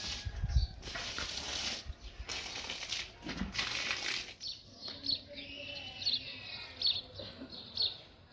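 Several bursts of rustling, flapping noise in the first half, followed by short high chirps.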